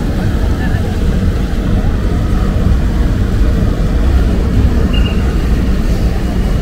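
Steady low rumble of city street noise, mostly road traffic.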